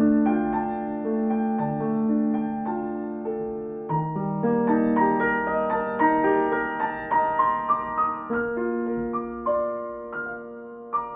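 Slow, calm solo piano music: a gentle melody of struck notes over sustained chords, fading near the end.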